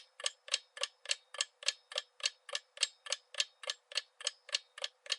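Clock-ticking sound effect of a quiz countdown timer: short, even ticks, about four a second.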